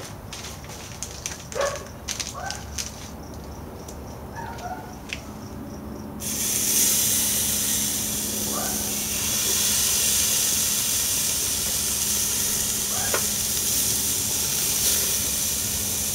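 Thick porterhouse steaks sizzling loudly on a searing hot cast iron grill grate over charcoal. The sizzle starts suddenly about six seconds in as the first steak goes onto the grate, and stays steady as the second is added; before that there are only a few light clicks.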